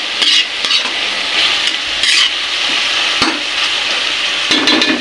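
Eggplant stir-frying in a wok, sizzling steadily while a spatula stirs and scrapes it around the pan, with a sharp knock of the spatula about three seconds in and a few more near the end.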